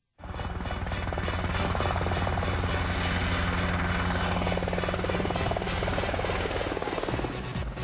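UH-60 Black Hawk helicopter flying close: rapid beating of the rotor blades over a steady engine drone. The sound shifts about seven seconds in.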